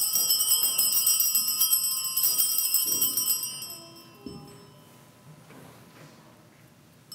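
Altar bells, a set of small hand bells, shaken rapidly in a jingling peal for about three and a half seconds and then ringing away. They mark the elevation of the consecrated host just after the words "this is my body."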